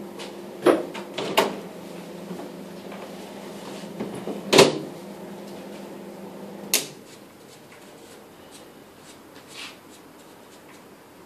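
Pool balls clacking during play: a handful of sharp, separate clicks and knocks, the loudest about four and a half seconds in, another just before seven seconds, and a fainter one near the end.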